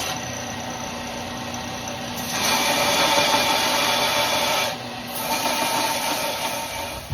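Power grinder grinding the flats of a pinned knife handle, a steady grinding hiss that gets louder for a few seconds at a time as the handle is pressed harder to the abrasive, then cuts off near the end.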